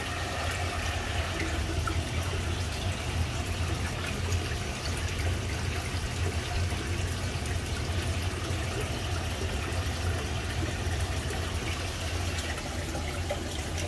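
Water running steadily through a fish-room aquarium system, with a constant low hum beneath it.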